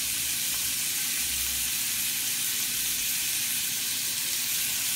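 Ground beef frying in hot bacon grease in a skillet, a steady sizzle.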